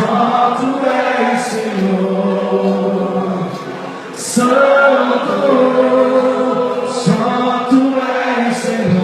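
Congregation singing a slow worship song with long held notes.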